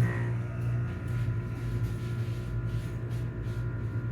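Commercial HVAC unit, likely dating from the late 1980s or early 1990s, running just after start-up: a steady electric hum with a few faint steady higher tones above it.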